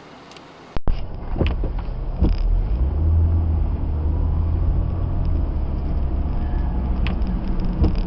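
Car cabin noise while driving: a steady low engine and road rumble that starts abruptly about a second in, with a few light clicks.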